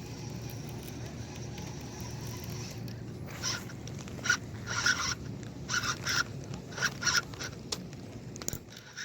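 Baitcasting fishing reel whirring in short, irregular spurts over a low outdoor hum, starting about three seconds in.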